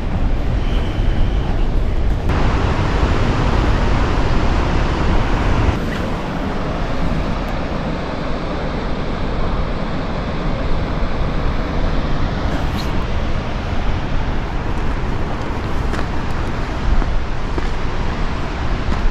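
The steady rushing roar of a large waterfall and its river, shifting in tone twice in the first six seconds.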